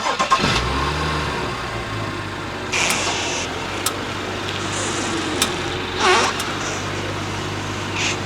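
Car engine idling steadily, with a few short sharp clicks and brief scraping bursts over it.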